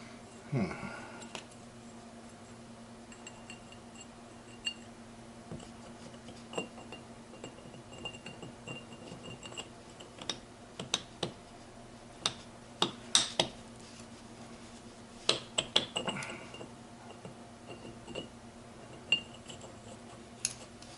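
Steel gearbox synchro parts clinking and clicking together as they are worked by hand, a part jamming rather than sliding freely. The clicks come irregularly, loudest in a cluster about halfway through.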